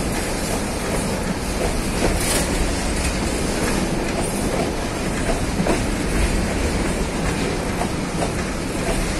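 Empty freight boxcars rolling past close by: a steady rumble of steel wheels on the rails, with irregular clicks and knocks from the wheels and trucks.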